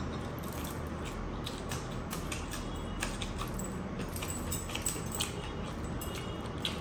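Heavy metal rings and bracelets jangling and clicking in a string of small irregular clicks as a bare hand mixes and scoops rice and chicken on a plate.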